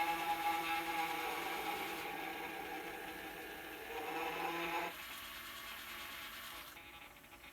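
Gemmy animated floating ghost decoration playing its recorded ghoul howl through its small speaker, a held, pitched wail that stops about five seconds in. Its animation motor whirs and rattles on underneath and keeps running after the howl ends.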